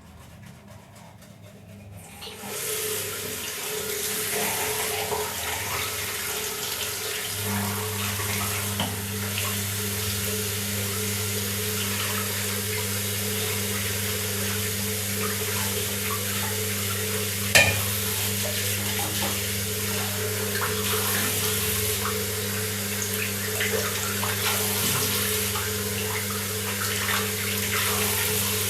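Water running from a tap into a sink, coming on about two seconds in and flowing steadily. A steady low hum joins a few seconds later, and there is one sharp knock a little past the middle.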